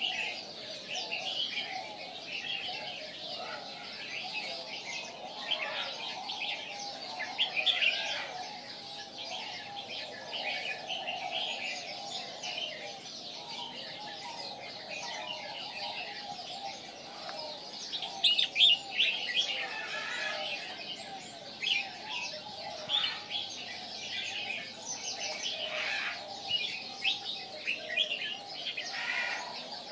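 Caged red-whiskered bulbul chirping and singing in short, repeated phrases, loudest twice: at about 8 s and again at about 18 s, with a steadier layer of other birds calling underneath.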